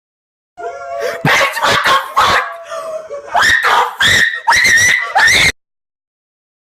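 An animal giving a string of loud, shrill yelps and screaming cries, several of them rising in pitch, that cut off suddenly near the end.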